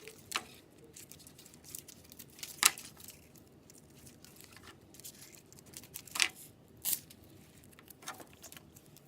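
Velcro (hook-and-loop) tape being handled and fitted: a few short tearing and crinkling sounds, the loudest about two and a half seconds in, with others near six and seven seconds.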